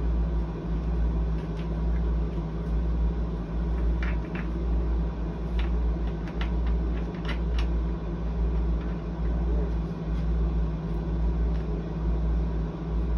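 A steady low rumble with a steady hum over it, as from running machinery. A few light clicks and taps come from hands working at the metal frame of an adjustable bed base: a pair near the middle and another pair a little later.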